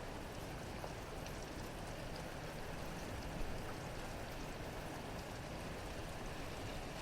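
Steady rain falling, with a few louder drops ticking here and there.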